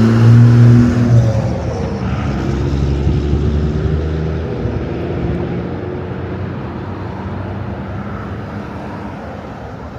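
A motor vehicle's engine, loud with a low hum in the first second or so, easing off after about four seconds into steady road traffic noise that slowly fades.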